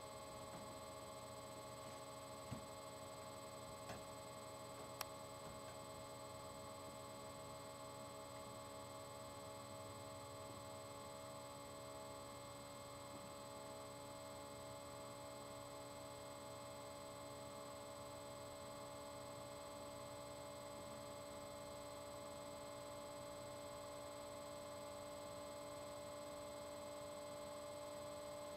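Faint, steady electrical hum made of several fixed tones, with three brief clicks in the first five seconds.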